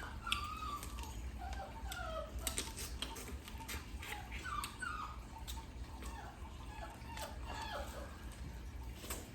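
A dog whimpering in many short, faint, high whines that slide up and down, with scattered light clicks.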